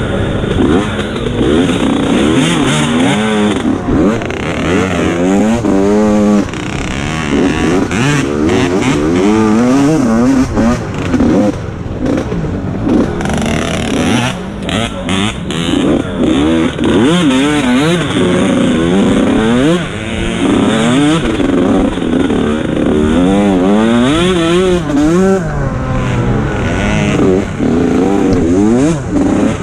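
Mini-class dirt bike engine being ridden hard over a rough trail, revving up and dropping back again and again every second or two as the throttle opens and closes, with clatter from the bike over the bumps.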